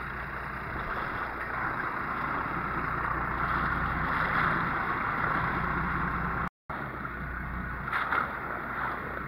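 Steady wind and water noise aboard a boat at sea, with a low hum underneath. The sound cuts out for a moment about two-thirds of the way through.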